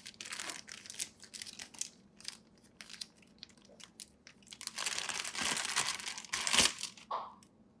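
Thin clear plastic bag crinkling and crackling in the hands as it is pulled open and an HDMI cable is drawn out of it. Scattered crackles at first, then a louder, continuous stretch of crinkling from about five seconds in that stops shortly before the end.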